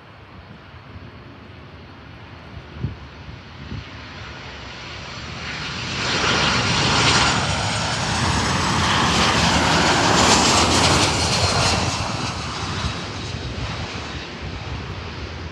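Boeing 737-800 jet airliner on final approach, passing low overhead. The jet engine noise builds from a distant rumble, is loudest for several seconds in the middle, then fades as the aircraft passes and descends to land.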